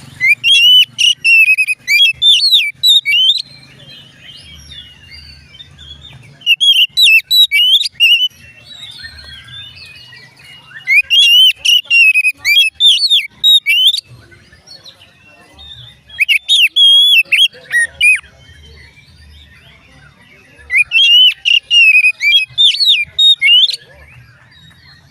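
Oriental magpie-robin (kacer) singing in five loud bouts of rapid, varied whistled phrases, each two to three seconds long, with pauses between them.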